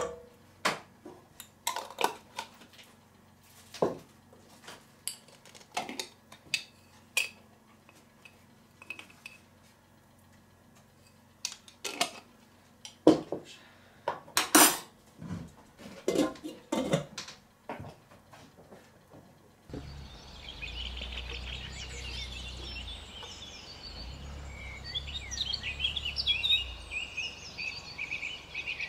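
A metal spoon clinking against a stainless steel cooking pot and glass spice jars, in sharp irregular clinks and taps. About two-thirds of the way in this gives way to birds singing over a low steady rumble.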